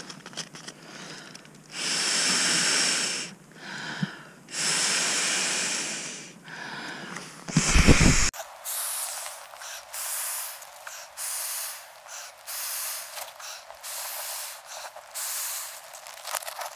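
Inflatable sleeping pad being blown up: long puffs of air rushing into its valve, each lasting a second or more. A loud bump about eight seconds in, then a run of shorter, quieter puffs and rustles.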